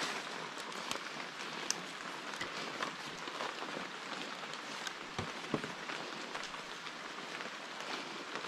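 Steady rain pattering on jungle foliage, with scattered clicks and a few knocks from split-bamboo strips and hands against the tree trunk during a climb.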